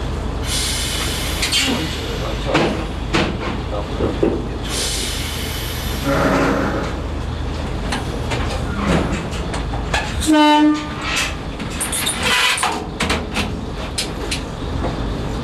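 Diesel railcar idling at a standstill, a steady low engine hum with scattered clicks. Compressed air hisses twice, near the start and about five seconds in, and a short horn blast sounds about ten seconds in.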